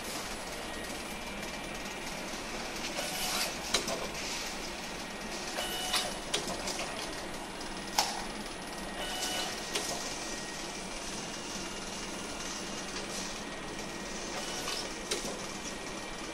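Bottle label applicator with an intermittent thermal transfer overprinter running: a steady mechanical hum with sharp clicks and short whirring bursts at irregular intervals, a few seconds apart, as labels are applied and printed.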